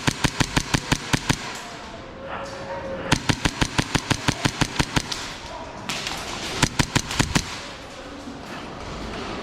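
Airsoft guns firing full-auto bursts, rapid sharp cracks at about nine shots a second. One burst stops about a second and a half in, another runs for about two seconds from three seconds in, and short bursts come near seven seconds.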